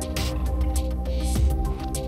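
Background music with a deep, steady bass under held notes and a brief hissing swell shortly after the start.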